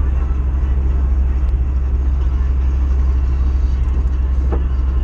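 Steady low rumble of a car's road and engine noise heard from inside the cabin while driving at highway speed.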